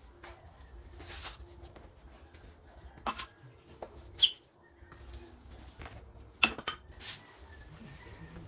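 A handful of sharp knocks and clicks at irregular intervals, the loudest about four seconds in and again about six and a half seconds in, over a steady high-pitched insect trill.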